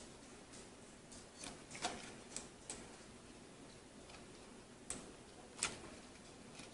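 A handful of faint, sharp clicks and taps, spaced irregularly, from the plastic shell and small wire connectors of a gaming mouse being handled as the connectors are pushed into its circuit board.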